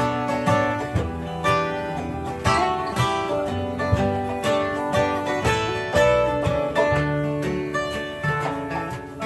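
Acoustic guitar playing an instrumental passage of a song, with chords struck on a steady beat about twice a second.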